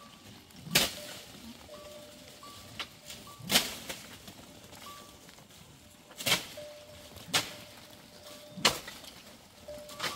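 Six sharp chopping strokes of a blade cutting into a tree's branches, spaced unevenly about one to three seconds apart, the work of lopping leafy branches down as fodder for goats.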